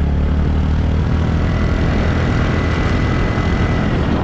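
Motor scooter engine running steadily while riding along at cruising speed, with wind rushing over the microphone.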